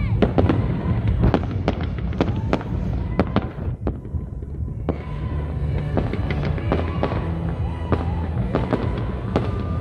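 Fireworks display going off: a rapid string of sharp bangs and crackles, with a brief lull about four seconds in before the bangs start again.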